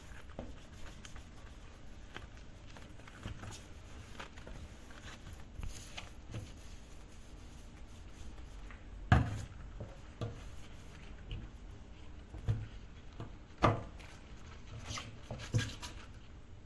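Dishware handled at a kitchen sink: irregular knocks and clinks of plates and cutlery set down and moved, the loudest about nine seconds in and twice more near the end, over a faint steady background.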